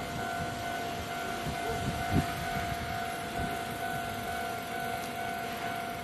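Japanese level crossing alarm on the Kintetsu Nara Line, ringing as a steady high tone, over a low rumble, with a sharp knock about two seconds in.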